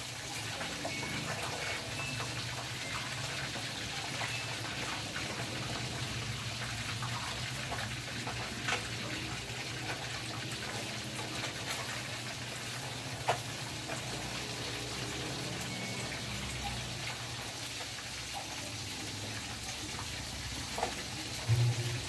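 Samsung Activ Dual Wash top-load washing machine running after its repair: water pours into the tub over a steady low hum, with a few faint clicks, and no fault noise is heard.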